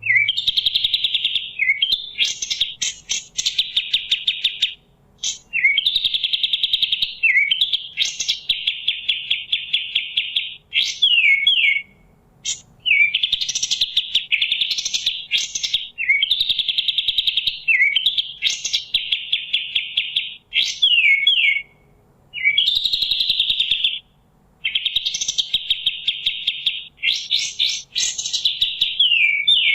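Kapas tembak songbird singing. The song is phrases of rapid, dense trills, each one to two seconds long, broken by short pauses, some ending in a few quick falling notes.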